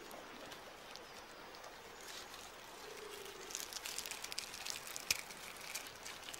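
Faint clicks and crackles of a robber crab (coconut crab) breaking into a red crab's shell as it feeds. The clicks come mostly in the second half, with one sharp crack about five seconds in, over a quiet natural background.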